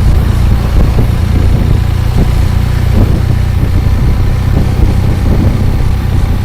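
Aprilia RSV4 motorcycle's V4 engine running steadily.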